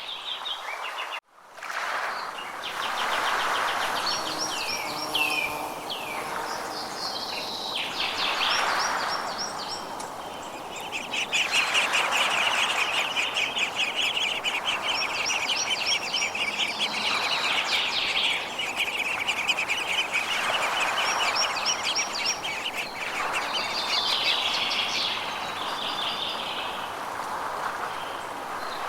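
Forest birds singing: repeated high chirps and falling whistled notes, then a long rapid trill lasting about twelve seconds, over a steady background hiss. The sound drops out abruptly for a moment about a second in.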